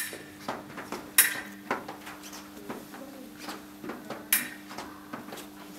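Foil fencing: thin steel blades clinking against each other and the fencers' shoes tapping on the piste, with two sharp blade clashes, one about a second in and another about three seconds later, over a steady low electrical hum.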